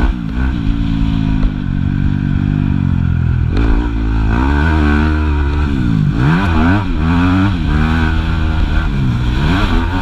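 Yamaha YZ250F motocross bike's four-stroke single-cylinder engine, heard close from onboard, revving hard and dropping back again and again as the rider works the throttle and gears, with a sudden change in pitch a few seconds in.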